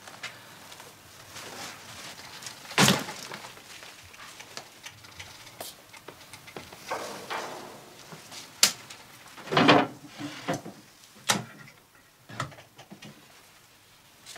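A series of separate knocks and thumps, the loudest about three seconds in and another cluster around nine to ten seconds.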